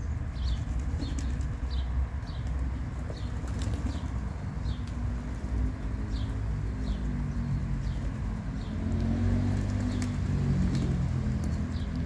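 A flock of racing pigeons: wings flapping as birds move about, with low cooing from about halfway through. High, short chirps from a small bird repeat about once or twice a second over a low rumble.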